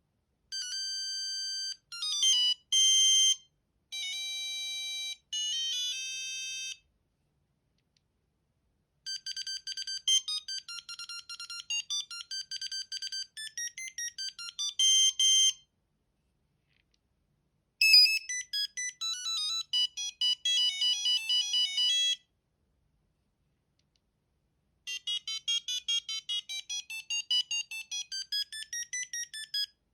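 Sony Ericsson T68i mobile phone playing its built-in ringtones one after another: four short electronic beeping melodies separated by pauses of about two seconds, the last cut off at the end.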